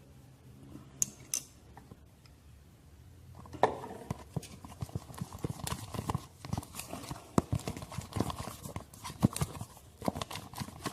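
A spoon stirring thickening slime in a container, knocking irregularly against its sides. After a couple of light clicks, the stirring starts about three and a half seconds in and keeps going.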